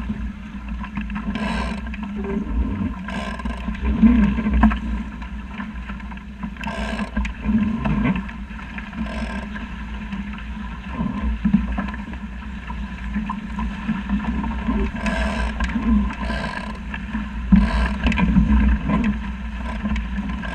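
Water rushing past and splashing against a small sailing dinghy's hull as it sails through a light chop, with irregular slaps of spray every second or two over a steady low wind rumble.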